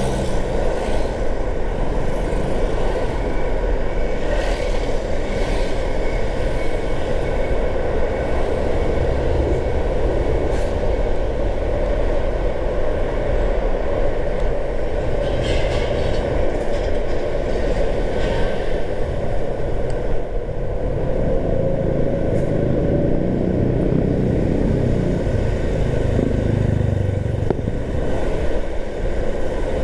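Steady road and engine noise of a car driving, a continuous low hum and tyre rush, with a few brief higher swishes.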